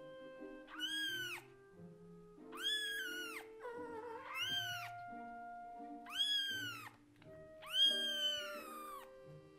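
Newborn kitten meowing loudly, about five high-pitched calls each under a second that rise and fall in pitch, the last one the longest. These are the calls of a young kitten left on its own, crying for its parent.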